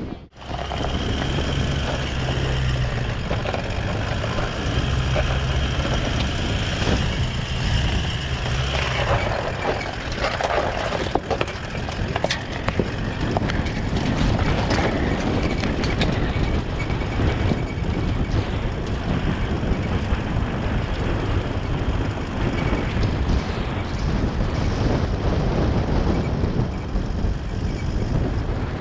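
Four-wheel-drive vehicle driving on an off-road track: steady engine drone and road noise, with frequent knocks and rattles from about ten seconds in.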